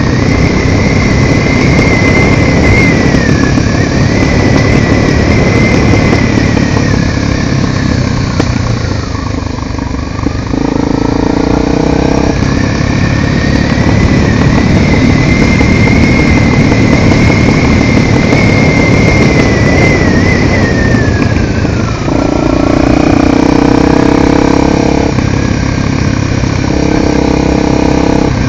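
Honda XR250 Tornado single-cylinder motorcycle being ridden, its engine running under heavy rushing wind noise. The engine note steadies into a clear pitched hum a little over a third of the way in and again near the end.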